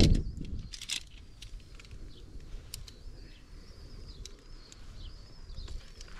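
Climbing hardware being handled while clipping in: a knock at the start, then scattered sharp metallic clicks over a low rustle of gear and rope. A faint, thin, wavering high-pitched tone runs through the second half.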